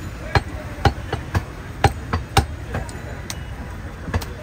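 Butcher's cleaver chopping goat meat on a wooden chopping block: a steady run of sharp chops, about two a second, some harder than others.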